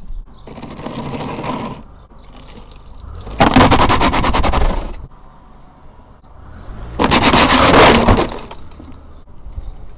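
Hard plastic tool case cracking and crunching under a car tyre, in two loud bouts of dense crackling about three and a half and seven seconds in, each lasting over a second. At the start, a quieter scrape as the case is pushed into place on the concrete.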